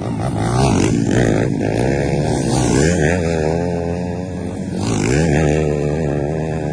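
Racing dirt bike engines revving hard through a corner, the pitch climbing and dropping with each throttle and gear change. Bikes swell loudest as they pass, about a second in, around three seconds and again past five seconds.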